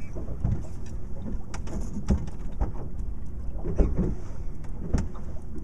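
Wind rumbling on the microphone aboard a small boat, with a few sharp knocks and clicks from the boat or fishing gear.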